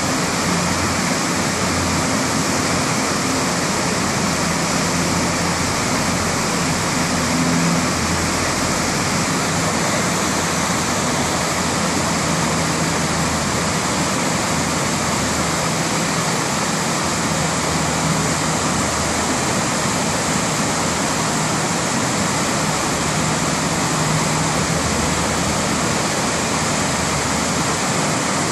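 Whitewater of a river in flood, swollen by rain and snowmelt: a steady, loud rush of rapids and a standing wave. A low hum comes and goes underneath.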